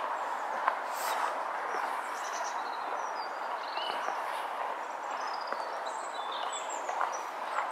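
Small birds chirping in short high calls and little trills over a steady outdoor hiss, with a few soft footsteps.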